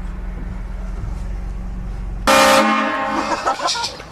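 A vehicle-mounted, compressor-driven train horn sounds one short, loud blast of several tones together about two seconds in, then tails off. Before it, a steady low hum from the vehicle's running engine.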